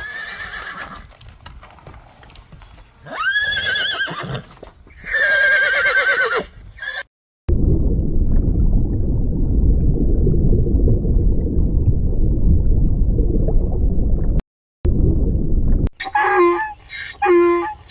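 Two long, wavering animal calls in the first seven seconds. A loud low rumble follows for about seven seconds, and a run of short calls starts near the end.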